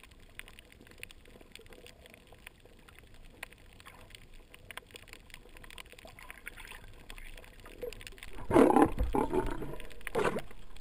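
Underwater sound picked up by a GoPro in its housing: faint crackling and scattered clicks, then about eight seconds in a much louder, rough rushing sound.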